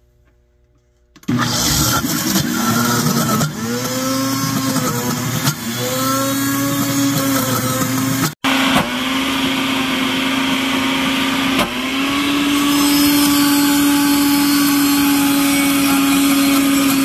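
A Ninja blender's motor starts about a second in and runs at full speed, grinding roasted peanuts into a thick peanut-butter paste. Its pitch dips and recovers a few times, then holds steady through the second half, with one short gap just past the middle.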